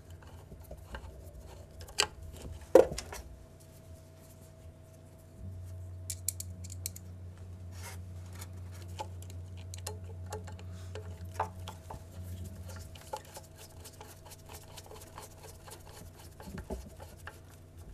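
Screws being placed and turned by hand with a screwdriver into the brush holder of an Agni electric motor: small metal clicks and scrapes, with two sharper clicks two to three seconds in. A low steady hum runs for several seconds in the middle.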